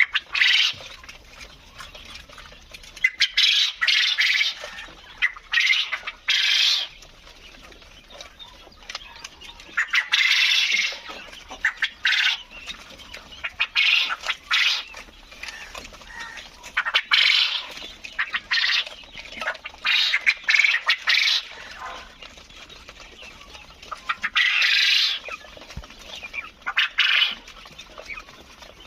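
Farmed quail calling: harsh, squawking calls in irregular bursts, a second to a few seconds apart.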